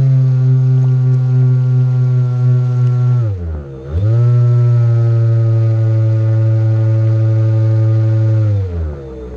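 RC airboat's motor and air propeller running at high throttle with a steady whine, easing off briefly a little past three seconds in, then spooling back up and winding down near the end.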